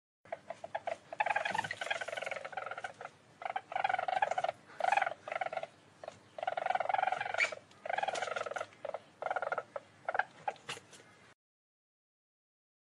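Weasel calling in rapid pulsed trills: several bouts of fast chattering notes, with single short clicks between them, cutting off suddenly about a second before the end.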